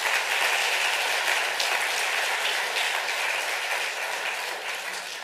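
Lecture-hall audience applauding at the end of a talk, dying away toward the end.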